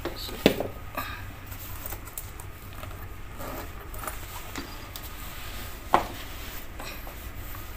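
Safety shoes knocking and scuffing on a hard floor as they are put down and moved: two sharp knocks, about half a second in and about six seconds in, with lighter clicks and scrapes between.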